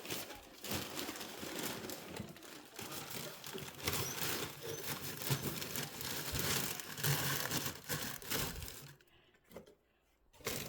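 Paper being crumpled and torn by hand, a dense crackling rustle that stops about nine seconds in, as paper is readied to start a fireplace fire.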